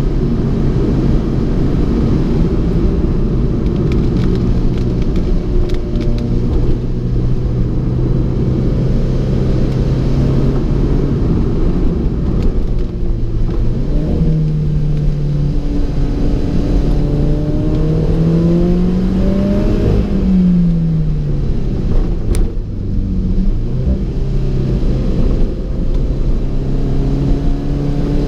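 Alfa Romeo 4C's turbocharged four-cylinder engine under way. Its note holds steady, then climbs and drops several times a little past the middle as the car is revved and shifted, over a steady rushing noise.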